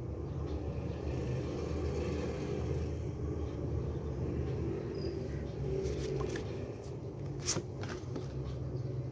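Steady low rumble, with a few light clicks and rustles as printed photo cards are handled and shuffled, the sharpest about seven and a half seconds in.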